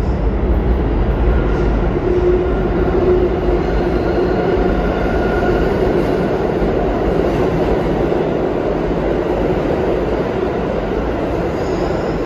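New York City Subway C train running through the station: a loud, steady rail rumble, with a faint whine held about two to five seconds in.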